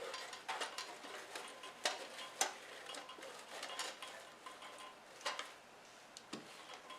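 Scattered light clicks and taps of small objects being handled, with a few sharper clicks about two seconds in and again past the five-second mark.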